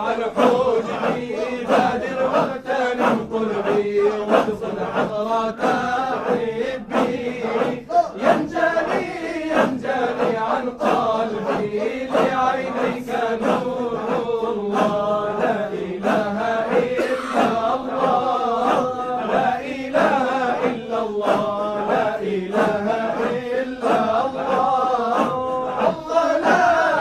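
Group of men chanting a Shadhili Sufi hadra dhikr: a steady rhythmic pulse of voices under sustained held notes, with a melody sung above them.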